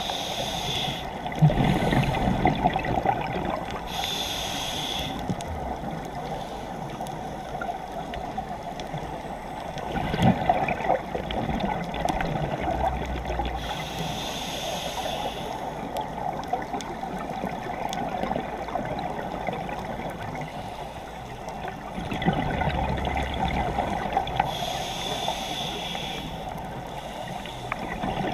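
Underwater sound of a scuba diver breathing through a regulator. A hiss of each breath and a gurgle of exhaust bubbles come in a slow cycle about every ten seconds, over a steady watery wash.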